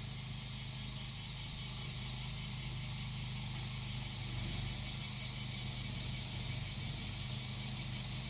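Cicadas calling in a rapidly pulsing high drone over the low, steady running of a grass-cutting machine's small engine.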